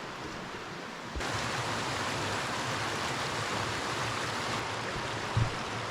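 Steady rush of falling water from a creek and its waterfalls. About a second in it jumps louder and brighter, and a short low thump comes near the end.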